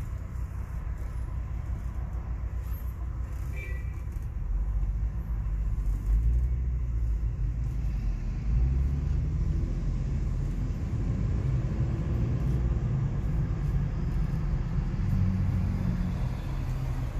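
Low engine and road rumble heard inside a BMW X5 E53's cabin as it moves slowly in traffic. The rumble grows louder about four seconds in and again around halfway, as the car gets moving.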